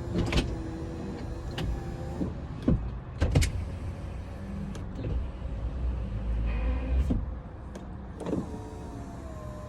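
2003 Honda Accord EX power window motors running as the glass is driven up and down with a newly replaced window switch, which now works. Two steady motor runs, one at the start and one from about eight seconds in, separated by clicks and knocks.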